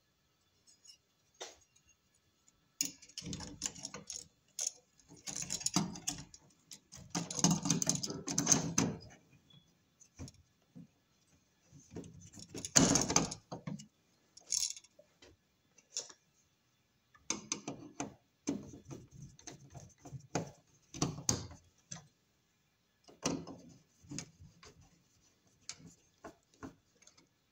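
Electrical wires being bent and worked into an electrical box by hand: irregular rustling, scraping and clicking in short bursts with pauses between, the loudest about thirteen seconds in.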